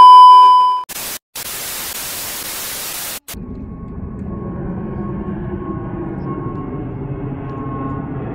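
A loud test-tone beep for just under a second, then TV static hiss for about two seconds that cuts off abruptly. After the cut comes the steady rumble of a jet airliner flying low overhead, growing slowly louder, with a faint whine.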